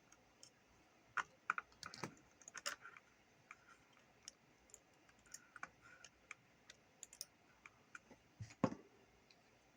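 Light, irregular clicks and taps of small tools and wire being handled against the plastic parts of a handheld CB radio, with a sharper knock near the end.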